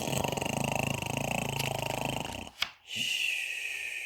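A person's voice imitating a dog's loud snore: a rattling snort on the in-breath, a short click, then a whistling out-breath that falls slightly in pitch.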